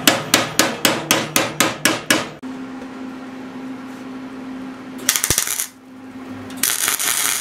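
Hammer tapping the thin, rusted sheet metal of a mower deck down onto a new steel patch: about ten quick taps, about four a second. Then a MIG welder's arc crackles in two bursts, a short one about five seconds in and a longer one near the end, welding the thin deck metal to the patch.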